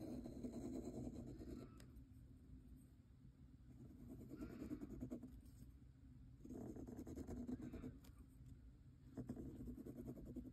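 Kakimori brass dip nib scratching faintly across paper, drawing long lines in about four separate strokes with short pauses between them.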